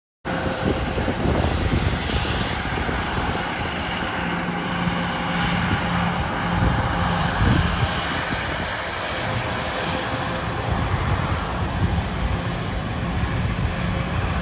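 Private jet's engines running steadily on the ground, a broad even noise with a faint steady whine, cutting in abruptly a moment in.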